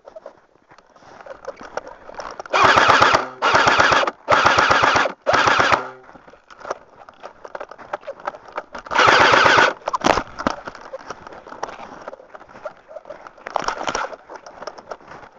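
Airsoft rifle firing full-auto bursts: four short bursts in quick succession about three seconds in, another around nine seconds, and brief single bursts later on.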